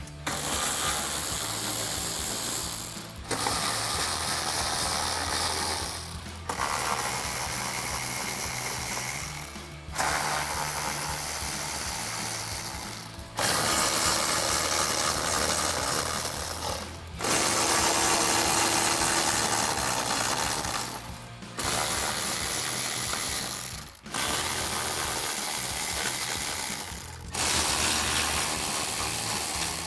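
Milwaukee cordless electric ratchet with a 7 mm socket running out bolts, in about nine runs of a few seconds each that stop briefly between bolts.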